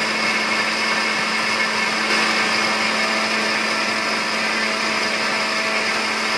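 Electric countertop blender running at a steady speed, grinding soaked soybeans with water for soy milk; the motor gives an even whine that does not change.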